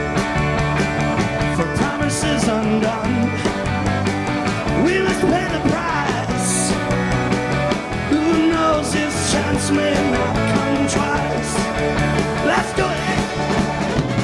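Garage rock band playing a song live: electric guitar, bass and drums with several cymbal crashes, and a man singing.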